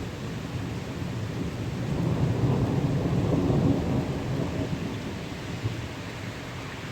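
A long roll of thunder that swells to a peak in the middle and then fades away, over steady rain.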